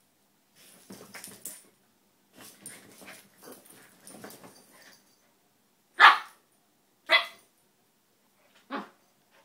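Two small dogs, a toy poodle and a Maltese, play-wrestling: quiet growling and scuffling, then three sharp barks about six, seven and nine seconds in, the first the loudest. It is rough play, not a fight.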